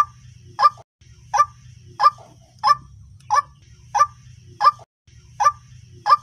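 White-breasted waterhen (ruak-ruak) calling: a short, sharp call repeated about every two-thirds of a second, around ten times, over a low steady hum.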